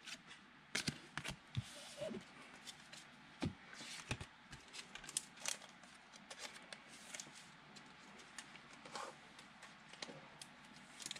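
Trading cards being handled: faint, scattered light clicks and soft rustles of card stock sliding against card stock and being set down.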